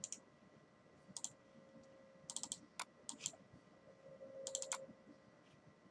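Faint clicking of computer keys and mouse buttons in a few short, scattered clusters, over a low steady hum.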